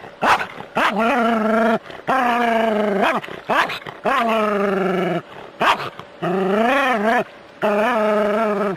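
Terrier barking and howling at a snake: about five long, drawn-out howling barks of roughly a second each, with short yelps between them.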